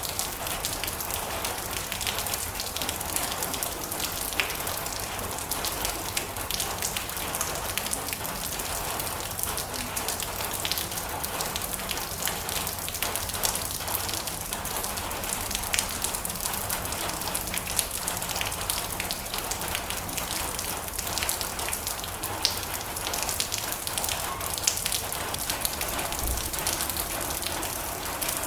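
Heavy rain drumming steadily on a metal roof, a dense even hiss with countless sharp drop ticks.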